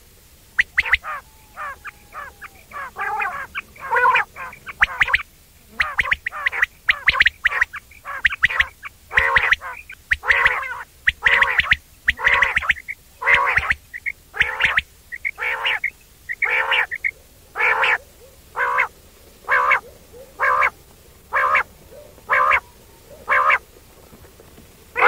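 Quail calling again and again with a short 'wong wong' call, about one call a second. The calls come quicker and less evenly in the first few seconds.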